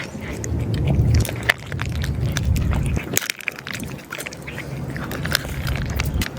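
A stray cat chewing dry cat food, with irregular crunching clicks over a low rumble.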